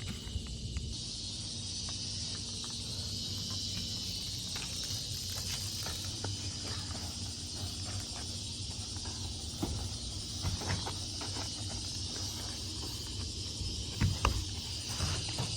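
Steady high-pitched insect chorus droning outdoors over a low rumble, with scattered light knocks and a louder couple of knocks near the end.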